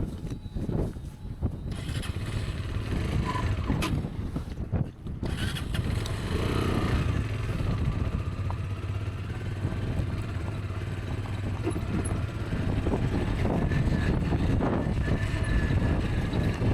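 Rieju Aventura 125 motorcycle's single-cylinder engine running while riding, settling into a steady drone after about five seconds, with a few knocks early on from the rough track.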